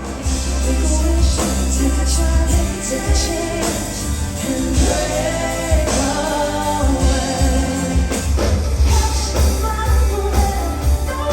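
Pop music with a singing voice over a heavy, steady bass line.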